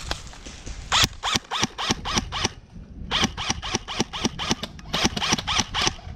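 Airsoft gun fired in rapid single shots, about four a second, each shot a sharp crack with a brief ringing twang. There are two strings, separated by a short pause a little before the middle.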